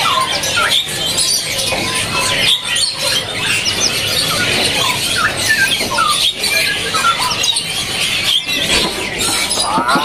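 Many caged songbirds chirping and whistling over one another, a dense, continuous mix of short calls and quick rising and falling whistles.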